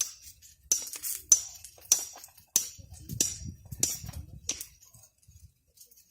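A series of about nine sharp, ringing clicks or taps from hard objects, roughly two a second, some with a dull thud under them. They stop about a second and a half before the end.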